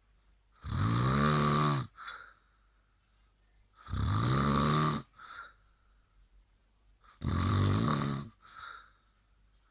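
A person snoring: three loud snores about three seconds apart, each about a second long and rising in pitch, each followed by a short, softer breath.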